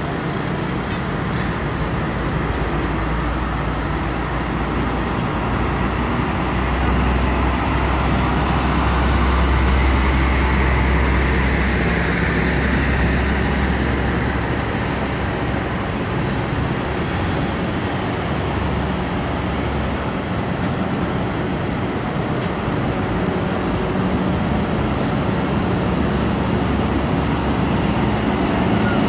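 Heavy diesel trucks hauling tarp-covered railcars on low trailers passing slowly, their engines giving a deep low rumble that swells to its loudest around ten seconds in, over steady road traffic noise.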